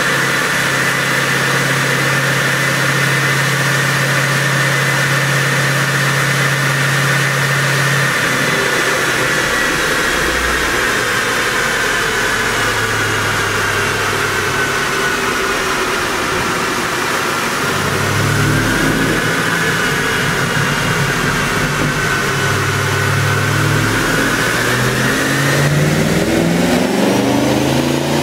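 ECU-tuned 2020 Porsche Panamera GTS's twin-turbo V8 running under load on a chassis dyno, with a steady engine note that shifts in pitch and a high whine that falls slowly over the first half and then climbs. Near the end the engine starts revving up as a pull begins.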